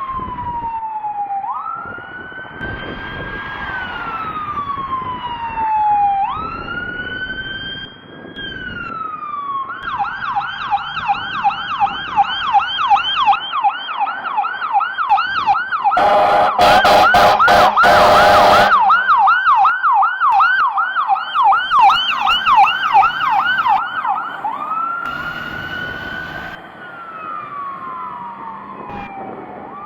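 Fire engine's electronic siren running on wail, slow rising and falling sweeps. About ten seconds in it switches to a fast yelp, roughly two sweeps a second. About halfway through, a few seconds of loud air-horn blasts sound over the yelp, and the siren goes back to wail near the end.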